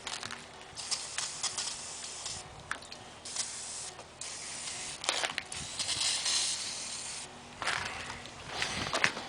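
Aerosol can spraying in about five hissing bursts, the longest about two seconds near the middle: flammable spray being put into a tire to fire-seat its bead onto the rim.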